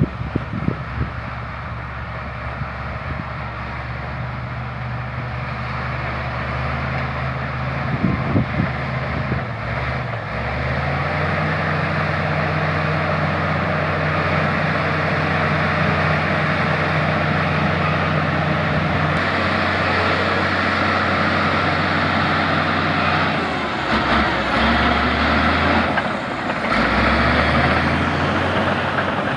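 LiuGong crawler bulldozer's diesel engine working steadily while grading, its note stepping up about ten seconds in and shifting again twice near the end. A few short knocks come near the start and around eight seconds in.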